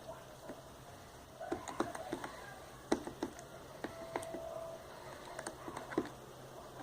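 Sticky homemade slime being worked by hand in a pot, giving irregular small clicks and pops.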